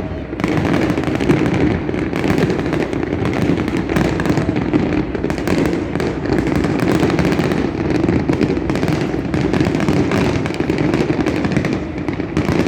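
Fireworks display going off in rapid succession: a dense, unbroken barrage of bangs and crackles with a continuous low rumble beneath.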